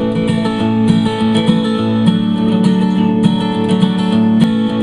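Acoustic guitar strumming steady chords: the instrumental intro of a country-style song, before the singing comes in.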